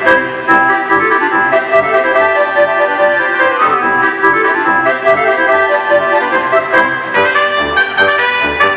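Polish folk dance music of the Lublin region, led by accordion over a steady pulsing bass beat. About seven seconds in, a brighter, fuller part comes in.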